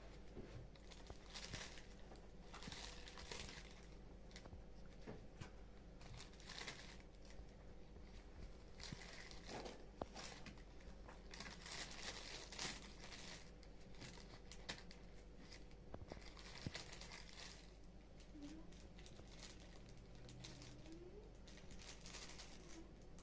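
Crinkling and rustling in irregular bursts, with a few light knocks.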